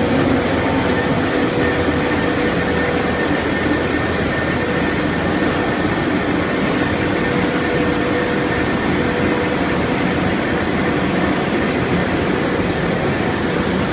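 Ring die organic fertilizer pellet granulator running steadily while pelletising cow manure compost: a constant loud machine noise with faint steady hums.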